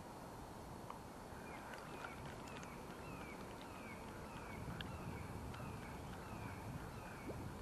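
An animal calling: a short falling note repeated evenly about three times a second, faint.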